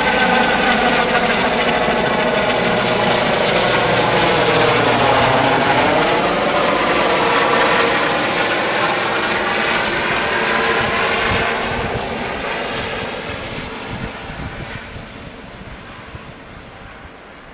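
Rescue helicopter flying overhead, loud, with a swooping change in tone about five seconds in as it passes; from about two-thirds of the way through it fades steadily as it flies away.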